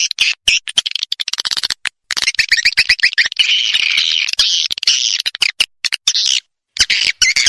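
Recorded swiftlet calls played as a swiftlet-house lure track: rapid sharp clicks mixed with high, buzzy chirping and twittering. A quick trill of short chirps comes about two seconds in, and there is a brief break near the end.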